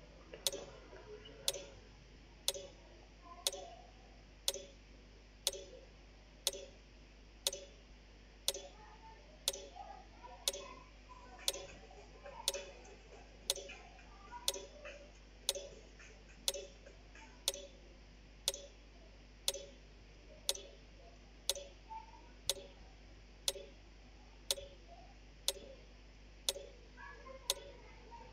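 Clock ticking steadily, one sharp tick a second with a short hollow knock after each, keeping time for a timed question.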